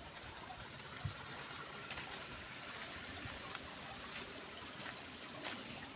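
Footsteps on a gravelly dirt track at a walking pace, sharp crunches about every half second to a second, over a faint steady hiss.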